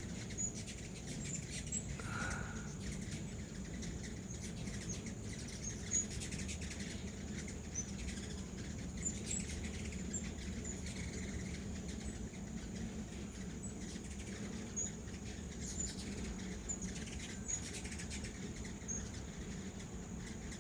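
Hummingbirds making many short, high chip calls scattered through, over a steady high insect drone and a low background rumble.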